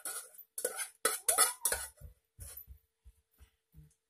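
A metal spoon scraping and clinking against a steel mug while steamed onion is scooped out onto a platter of noodles. A quick run of sharp scrapes and clicks comes first, then softer knocks of the mug and spoon being handled.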